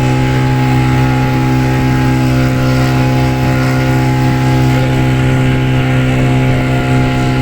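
Motorboat engine running at a steady speed, a loud, even drone that holds the same pitch throughout.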